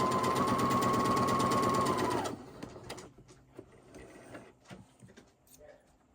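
Electric sewing machine stitching a test seam on scrap fabric after rethreading, running at a steady speed with its motor whine and fast stitch rhythm. It stops about two seconds in, the whine dropping away. A few faint handling clicks follow.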